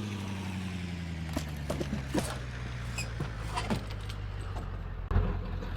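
Vehicle engine slowing down, its pitch falling over the first few seconds and then settling to a steady low running hum, with scattered light rattles and clicks. A thud comes about five seconds in.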